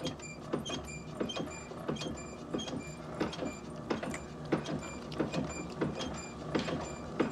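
Coin-operated mechanical horse ride rocking, its mechanism squeaking and knocking in a steady repeating rhythm.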